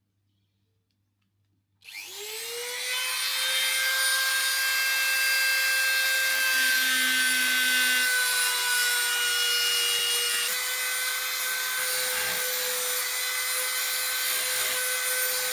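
A small high-speed rotary power tool switches on about two seconds in, spins up with a quickly rising whine and then runs steadily, grinding against the metal of a fishing reel's main plate. Its pitch drops slightly about ten seconds in.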